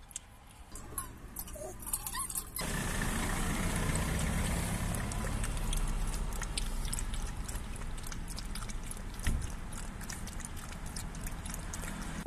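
A puppy lapping water from a metal bowl, with small wet clicks. About two and a half seconds in, a steady low hum and hiss from the car comes on suddenly and runs on under the lapping.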